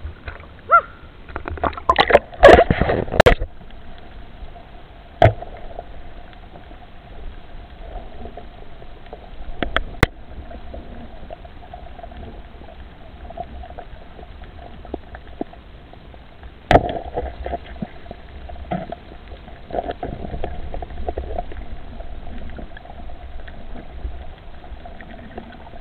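Muffled underwater sound through a camera's waterproof housing: a faint steady hum and low rumble. A burst of knocks and splashing comes about two to three seconds in, and single sharp clicks follow now and then.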